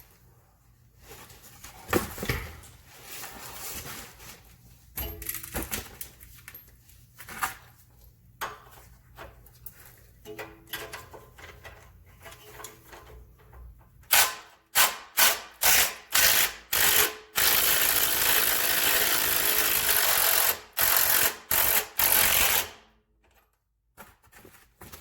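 Impact wrench hammering the lower bolt of a rear shock loose: after scattered clicks and knocks of the tool being fitted, it fires in a string of short bursts, then runs for several seconds, then a few more short bursts before stopping suddenly.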